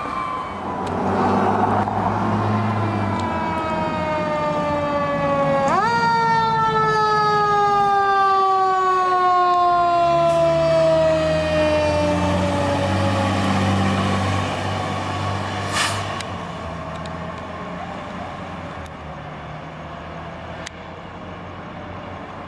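Fire engine siren sounding, one quick rise about six seconds in followed by a long, slow falling wind-down. The truck's diesel engine rumbles as it passes, and the siren fades in the last few seconds.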